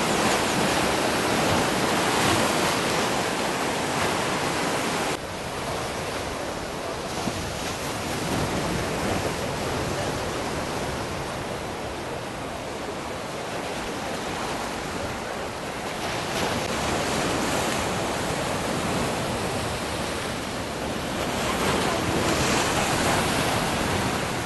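Ocean surf breaking and washing up a sandy beach, a steady rush that swells and eases with the waves. It drops abruptly about five seconds in and builds louder again near the end.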